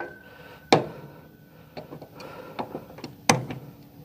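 Sharp clicks and knocks from a motorcycle foot-peg tie-down mount's strap and metal hardware being handled and cinched down by hand. Two loud clicks come under a second in and just past three seconds, with softer clicks between.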